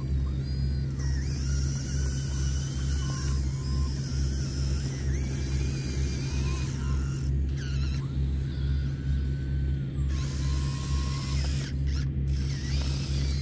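Radio-controlled Volvo model excavator running: a steady low hum that pulses about one and a half times a second, with whining tones above it that rise and fall as the machine moves its arm and tracks.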